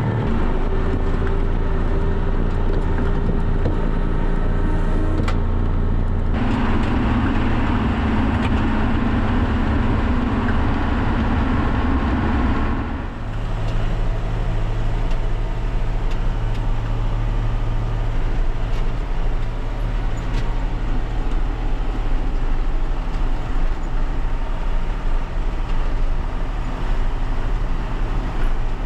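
Tractor engine running steadily while hauling a load of manure. It gets louder and rougher from about six seconds in, then settles back to a steady run about thirteen seconds in.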